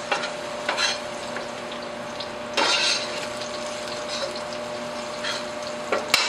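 Sliced garlic frying in olive oil in a stainless steel sauté pan, a steady sizzle while it browns toward golden, with a few louder crackling flare-ups as the slices are moved about, the biggest about two and a half seconds in. A sharp clink of a spoon against the pan just after six seconds.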